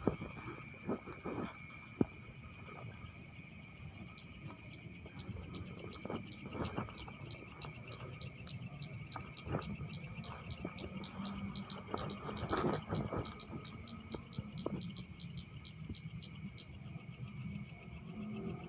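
Insects chirping in a steady chorus of rapid, even pulses. Scattered light clicks and a brief, louder rustle about twelve seconds in.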